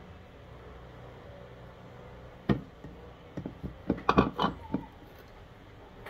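Kitchen utensils knocking on plastic bowls and a plastic blender jar: one sharp knock about two and a half seconds in, then a quick run of taps and clatters over the next two seconds, over a faint low hum.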